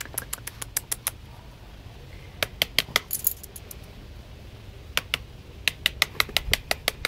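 Quick runs of sharp, light clicks from a small dog moving about on a concrete porch floor, in three bursts: near the start, around the middle, and again over the last two seconds.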